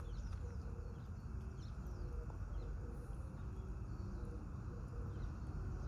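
Birds calling with scattered short, high, downward-sliding chirps over a steady low background rumble.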